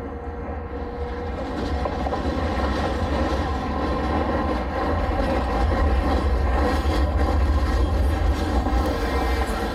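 Tosa Den Kotsu tram 910, a vintage ex-Lisbon tramcar, running past on street track. Its rumble and a steady hum of several tones grow louder as it approaches and are loudest as it passes side-on near the end.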